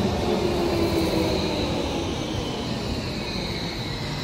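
Electric street tram running along its rails and moving away, its motor whine sliding down in pitch and fading over a steady low rumble.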